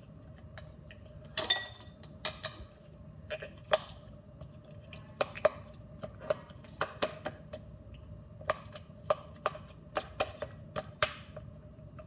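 Frozen silicone fidget toy, a Dimple Digits, being pressed, its dimples popping as a string of irregular sharp clicks, about twenty of them. A faint steady hum runs underneath.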